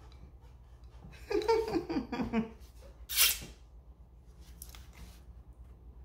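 A woman's voice making a few short sounds without clear words, then a short sharp hiss a little over three seconds in, over a low steady hum.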